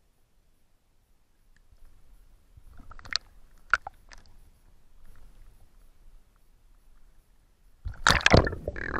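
Water splashing and sloshing around an action camera at the lake surface as a swimmer surfaces and goes back under: a few sharp splashes about three to four seconds in, then a loud burst of splashing near the end.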